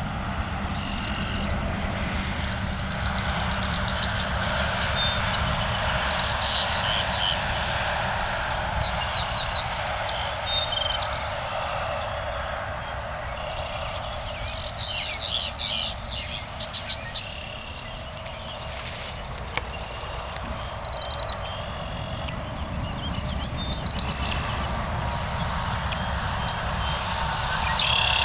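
Small birds chirping and trilling, with bursts of rapid high trills about halfway through and again near the end, over a steady low rumble.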